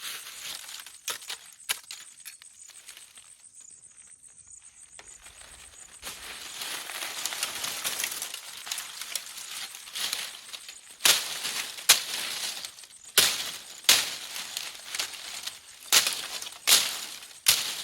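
Dry wood cracking and snapping: a run of sharp cracks, coming roughly once a second in the second half, over crackling and rustling of sticks and brush.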